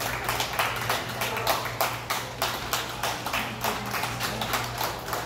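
A few people clapping steadily, about five claps a second, over a low steady hum.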